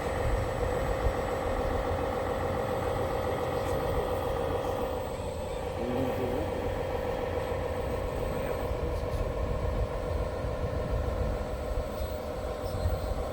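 An RC construction machine running steadily, a motor whine made of several even tones over a low rumble.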